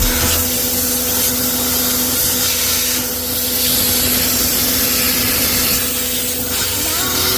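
Washing machine running a cycle: a steady motor hum over a loud, even rushing noise.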